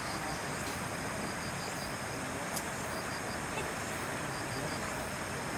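Steady outdoor background noise, an even hiss with faint steady high-pitched tones over it and a single faint click about two and a half seconds in.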